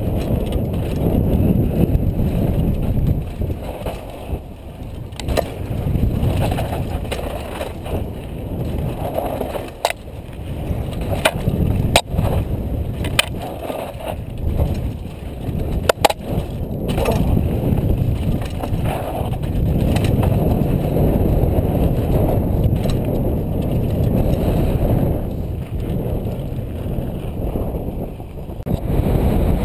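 A Specialized Big Hit downhill mountain bike riding fast down a dirt trail, heard from a helmet camera: a steady low rumble of wind on the microphone and tyres on dirt, with sharp knocks from the bike hitting bumps, several close together around the middle.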